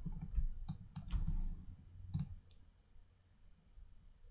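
Computer mouse clicking: four sharp clicks in two close pairs, over a low rumble in the first couple of seconds.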